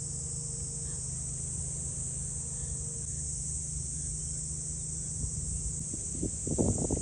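Steady high-pitched insect chorus shrilling, over a low uneven rumble. About six seconds in, a burst of louder irregular rustling and crackling starts.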